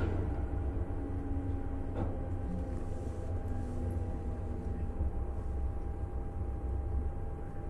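CityElefant electric multiple unit running at steady speed, heard from inside the carriage: a low rumble from the running gear with a steady whine held on one pitch, and a single click about two seconds in.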